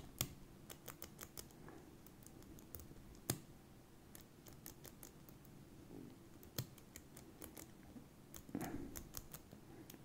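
Faint, scattered clicks of a brass four-wheel Brinks combination padlock's number wheels being turned by thumb, one detent at a time, while the shackle is held under tension to feel for each wheel's true gate among the false gates. A few clicks stand out louder, one about three seconds in and another past six seconds.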